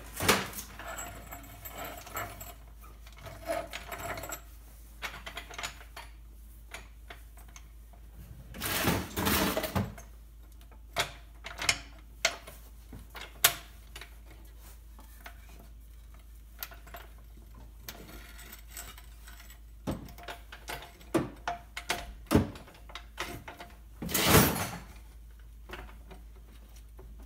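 Scattered clanks and knocks of hand tools and wood blocks being handled and set in place against a Jeep's front axle, with two longer scrapes, one about nine seconds in and one near the end.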